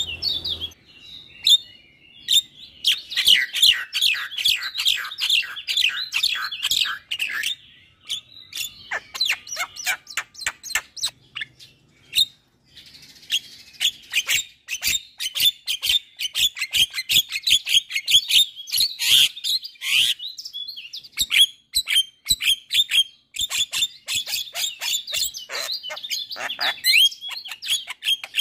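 Javan myna singing a long, fast chattering song of short whistles and harsh notes, broken by a couple of brief pauses.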